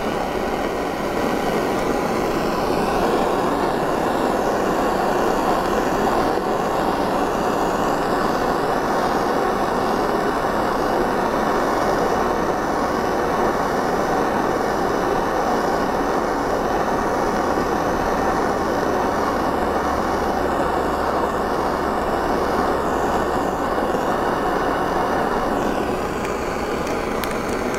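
Handheld butane torch flame hissing steadily as it heats a silver ring to flow wire solder into the seam.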